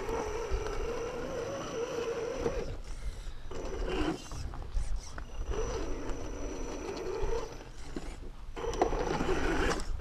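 1/10-scale RC rock crawler's electric motor and geartrain whining as it climbs a rock face, the pitch rising and falling with the throttle in spurts with short pauses.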